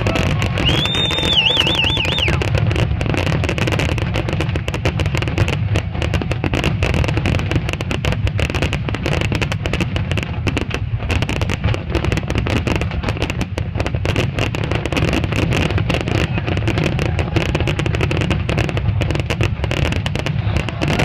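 Fireworks finale: aerial shells bursting in a dense, continuous barrage of bangs and crackles. A high wavering whistle sounds about a second in.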